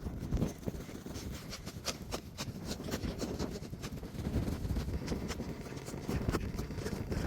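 Footsteps in snow: a run of short, irregular steps, with wind rumbling on the microphone.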